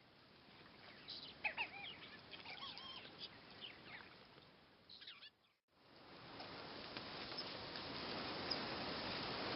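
Faint bird calls: short chirps that rise and fall in pitch, some in quick runs, over a soft hiss. After a brief drop-out about five seconds in, a steady hiss of open-air noise slowly grows louder.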